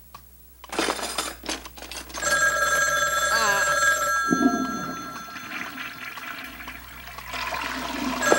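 Cartoon telephone ringing: a steady two-tone bell ring starts about two seconds in and lasts about two seconds. After a pause of about four seconds it rings again near the end, in the on–off rhythm of an incoming call.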